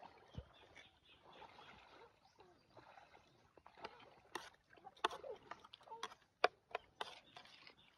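Quiet eating sounds: wet chewing, with a metal spoon clinking and scraping against a ceramic plate of raw fish in coconut milk, several sharp clicks in the second half.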